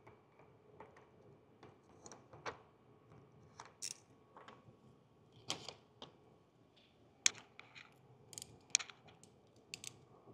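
Tint film being handled and trimmed by hand against a car window: scattered, irregular soft crackles and sharp ticks. The sharpest come about seven and nine seconds in.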